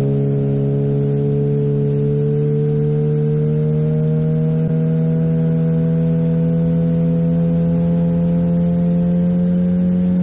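Small outboard motor pushing an inflatable boat, running steadily, its pitch slowly rising throughout.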